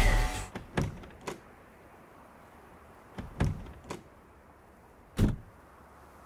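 Music cutting off at the start, then about half a dozen separate dull knocks or thuds, like doors or handled objects, over a quiet background. The loudest knock comes about five seconds in.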